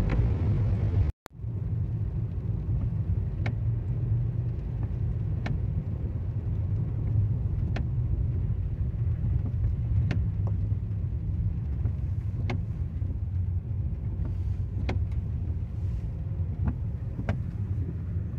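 Car cabin noise while driving on a wet road: a steady low rumble with occasional sharp ticks. The sound drops out briefly about a second in.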